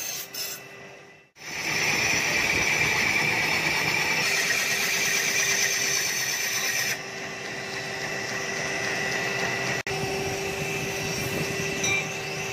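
Electric grinding wheel running steadily, with a steel sickle blade ground against the abrasive wheel. The grinding is loudest until about seven seconds in, then the wheel keeps running a little quieter with a steady hum.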